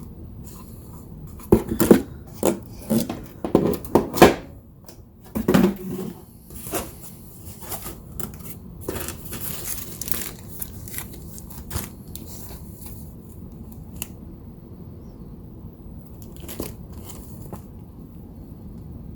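Packaging being handled and unwrapped: crinkling and tearing, with a cluster of sharp knocks and clicks in the first few seconds, lighter rustling after that, and one more short rustle near the end.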